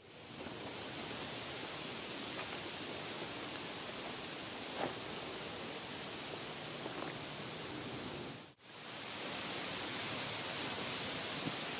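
Steady, even outdoor hiss with no distinct event in it, brightest in the upper range. It drops out sharply for a moment about eight and a half seconds in, then resumes.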